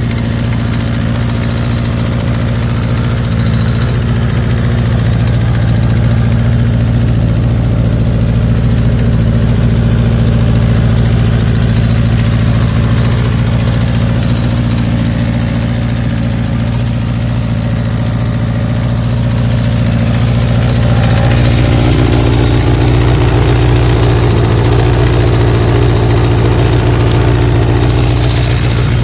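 1984 Kawasaki GPZ's air-cooled engine idling roughly, a steady running note that shifts slightly about two-thirds of the way through. The rough idle follows recent carburettor work, and the owner reckons the bike needs a good going-over.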